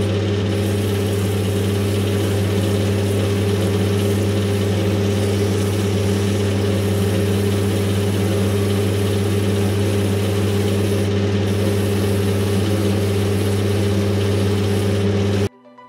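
Metal lathe running steadily with a strong hum while 80-grit sandpaper is held against Grenadilla wood glued onto a spinning titanium ring core, sanding away the bulk of the wood. The sound cuts off suddenly near the end.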